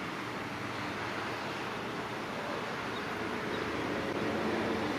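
EMD GT46MAC (WDG4) diesel-electric locomotive approaching with a passenger train, its 16-cylinder two-stroke 710 diesel running steadily and growing gradually louder.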